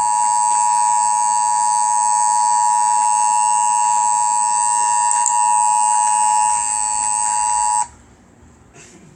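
Emergency Alert System attention signal: a loud, steady two-tone alarm, two high pitches sounding together, held for about eight seconds and then cutting off abruptly. It signals that an emergency warning message, here a tornado warning, is about to be read.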